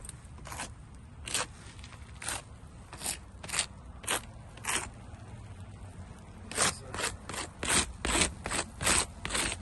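Shoes scuffing on asphalt roof shingles: a string of short, gritty scrapes, spaced out at first, then after a pause coming faster, about three a second near the end.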